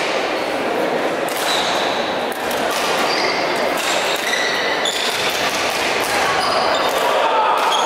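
Badminton doubles rally: rackets hitting the shuttlecock, with sports shoes squeaking and footsteps on the hall floor, echoing in a large hall.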